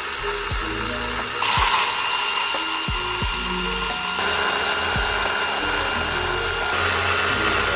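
Battery-powered electric ratcheting wrench running in reverse to break the ignition coil bolts loose; its motor whirs and gets suddenly louder about a second and a half in.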